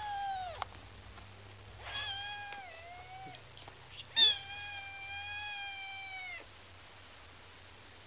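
Kitten meowing three times: a short meow at the start, then two longer ones, the last the loudest and longest at about two seconds.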